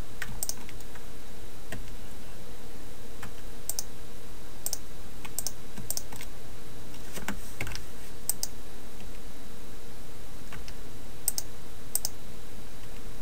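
Sparse, irregular keystrokes and clicks on a computer keyboard and mouse while working in 3D modelling software, over a steady low hum.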